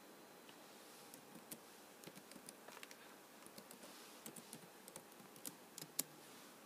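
Quiet typing on a computer keyboard: an irregular run of key clicks, with one louder keystroke near the end.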